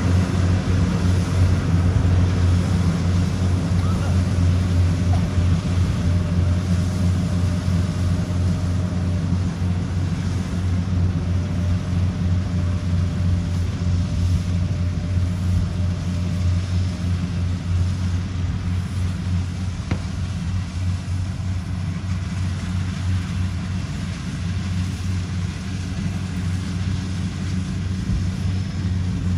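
Tracked rice combine harvester running steadily as it cuts ripe rice: a continuous low engine-and-machinery hum that slowly grows a little fainter.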